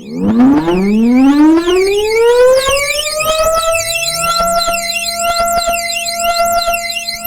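Tornado siren sound effect winding up from a low pitch to a steady high wail over about three seconds, with a second, lower tone winding up behind it. It is electronically processed, with a crackling distortion and a criss-cross of sweeping high tones laid over it.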